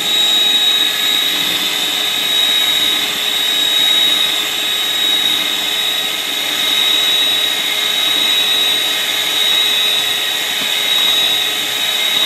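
Electric hand mixer running steadily with a high whine, its beaters whisking instant coffee, sugar and hot water in a bowl to make dalgona foam.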